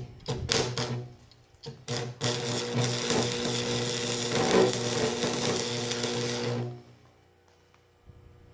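Small 70/90-amp stick welder at work: a few short sputters as the rod strikes the arc, then a steady crackling hiss with an electrical buzz for about four and a half seconds, cutting off suddenly.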